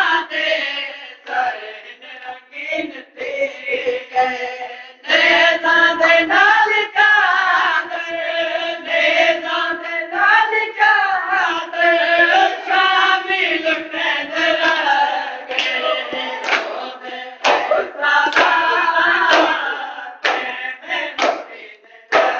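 Men chanting a noha, a Shia Muharram lament, in chorus behind a lead voice. In the second half, sharp rhythmic hand strikes of matam (chest-beating) keep time with the chant, roughly one or two a second.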